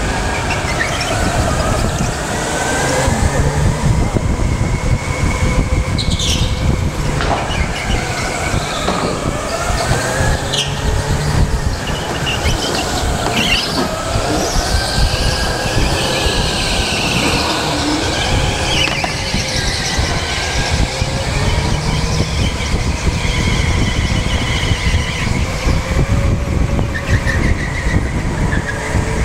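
Electric go-karts lapping an indoor track, heard onboard: motor whine rising and falling in pitch with speed through the corners, and tyres squealing on the track surface from time to time.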